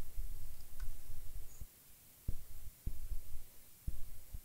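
Handling noise on the workbench: a low, uneven rumble with several dull thumps, dropping away for a moment in the middle.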